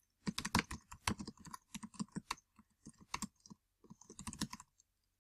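Typing on a computer keyboard: a quick, uneven run of keystrokes that stops near the end.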